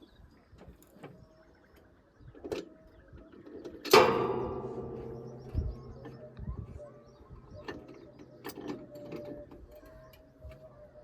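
Light clicks and clinks of metal tools, then one loud metallic clang about four seconds in that rings on and fades over a couple of seconds.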